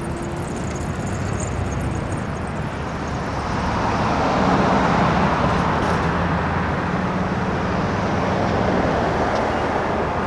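Road traffic: tow trucks in procession and cars driving past, engines and tyres running steadily. It grows louder about three and a half seconds in, with a steady low engine drone for several seconds in the middle.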